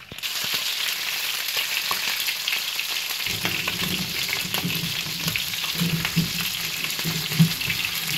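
Boiled hen pieces sizzling steadily in hot oil in a frying pan, shallow-fried to brown them golden, with scattered clicks of metal tongs turning the pieces. A low rumble joins the sizzle about three seconds in.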